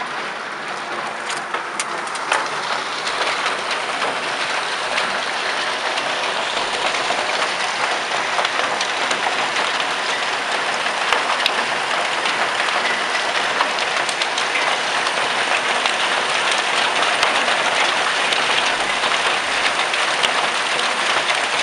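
Heavy downpour heard through a half-open window: a dense, steady hiss of rain, with scattered sharp knocks of hailstones striking.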